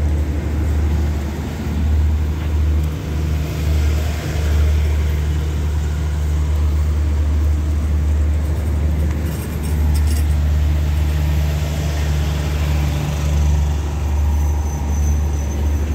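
Steady low drone of a stopped passenger train's diesel engines running at idle.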